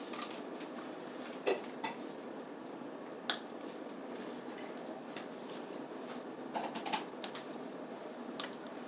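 Scattered sharp clicks and taps of small hard things being handled at a meal table, about seven of them spread unevenly over a faint steady hiss.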